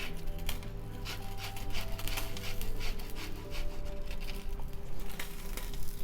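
Orange peel being rubbed over a grater for zest: a run of short rasping strokes, about two a second, with quiet background music underneath.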